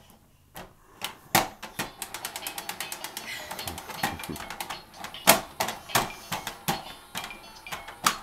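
Plastic baby activity cube: its red spinning dial clicking like a ratchet as it is turned by hand, a rapid run of clicks, with a few louder knocks of hands on the plastic.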